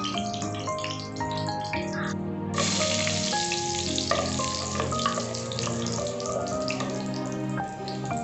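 Whole spices and bay leaves sizzling in hot oil and ghee in a karahi, growing suddenly louder about two and a half seconds in, over background music with steady notes.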